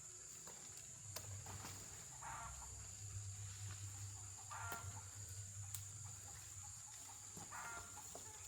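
Faint farmyard ambience: three short bird calls, about two and a half seconds apart, over a steady high drone and a low hum.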